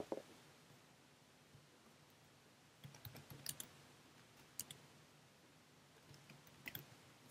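Faint keystrokes on a computer keyboard, typing a few letters: a short cluster of clicks about three seconds in, a single click a little later and a pair near the end.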